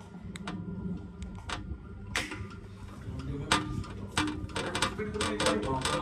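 Ceiling fan running with a phone taped to one blade, heard from the spinning phone: a steady low hum with irregular clicks and knocks that come more often in the second half. The fan is shaking from the extra weight on the blade.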